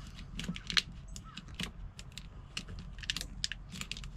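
Irregular small plastic clicks and crackles of corrugated split-loom wire tubing being worked open by hand and fitted over wires.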